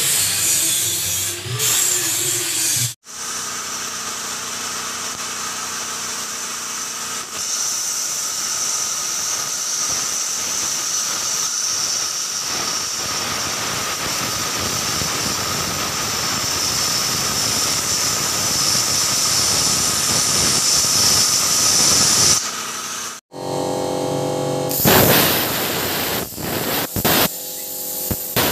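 Plasma cutter torch cutting steel plate: a steady, even hiss that runs for about twenty seconds. Short different sounds come before and after it, at cuts about 3 seconds in and near the end.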